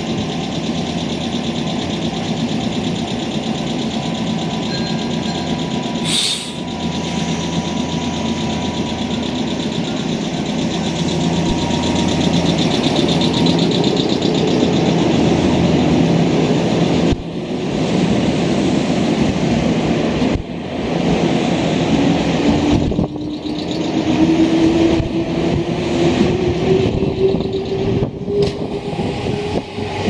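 Nankai 6300 series electric commuter train pulling out of the station and gathering speed, its cars rolling past close by. In the second half a motor whine rises steadily in pitch as it accelerates.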